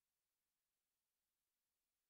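Near silence: an essentially silent audio track with no audible sound.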